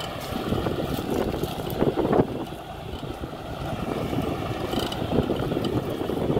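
John Deere tractor's diesel engine running steadily under load as it pulls a mounted plough through the soil.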